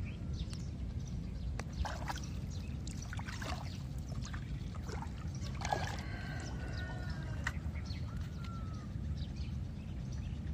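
Small splashes and drips of water as fish are worked out of a gill net in shallow floodwater and dropped into a basin, over a steady low rumble.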